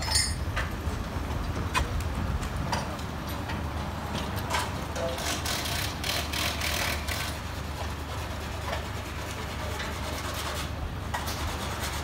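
Steady low rumble of idling work-truck engines, with scattered knocks and clanks from the crew dismantling a railway level crossing.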